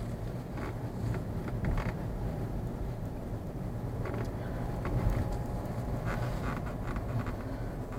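Low, steady rumble of a car on the move, heard from inside the cabin, with a few short creaks from time to time.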